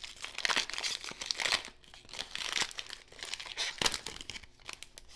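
A 2020 Panini Prizm Football trading-card pack wrapper crinkling and tearing as it is opened by hand, in a run of rustling crackles with a sharp crackle about four seconds in.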